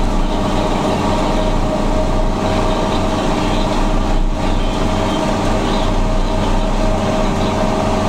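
John Deere tractor's diesel engine running at a steady speed while it drives along a road, heard from on board with a constant engine drone and road rumble.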